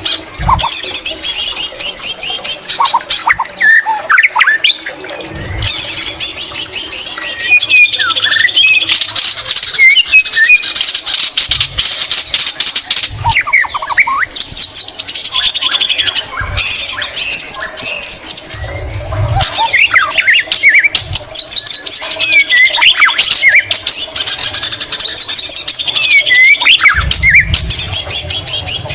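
White-rumped shama singing a long, loud song of fast rattling trills and short whistled phrases, with little pause, its song filled with imitations of the greater green leafbird.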